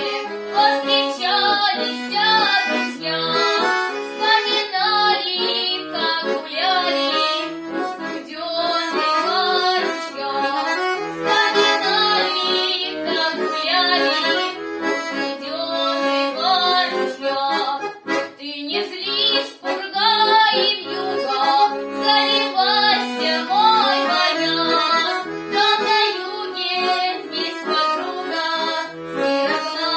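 Accordion playing a lively folk-song tune, with quick ornamented runs and a steady bass-chord accompaniment.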